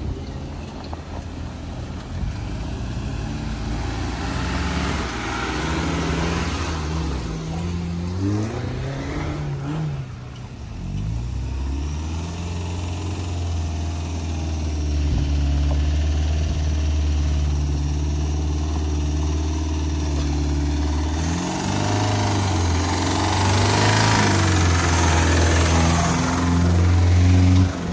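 Engines of off-road 4x4 SUVs, a Maruti Gypsy and Mahindra Boleros, pulling up a rough dirt track, revving up and easing off several times. The engine sound grows louder over the last few seconds as a Bolero drives close by.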